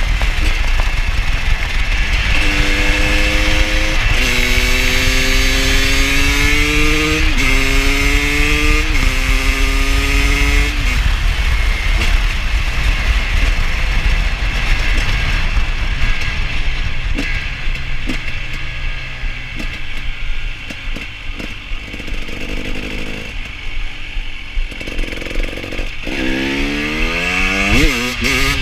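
KTM 250 supermoto engine pulling hard through about four gears, its pitch climbing and dropping back at each shift, then easing off to a lower, quieter run before revving up again near the end.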